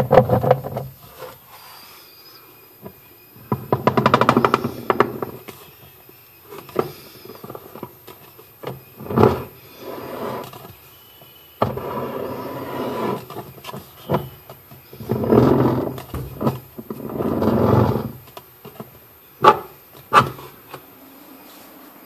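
Plastic pulsator in a semi-automatic washing machine's wash tub being turned and handled by hand, giving irregular bursts of rumbling, grinding noise with a low hum, then two sharp knocks near the end.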